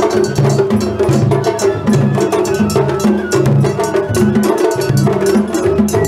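Japanese festival float music (matsuri-bayashi): taiko drums beating a repeating pattern under a small hand gong struck in a quick, steady metallic beat.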